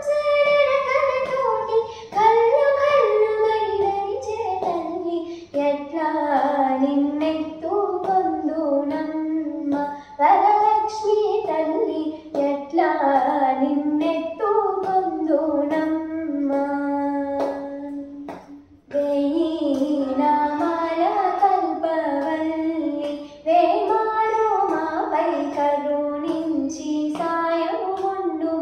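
A girl singing a Telugu devotional song to the goddess Varalakshmi, solo, one voice carrying a slow melody of long held notes, with a brief break for breath about two-thirds of the way in.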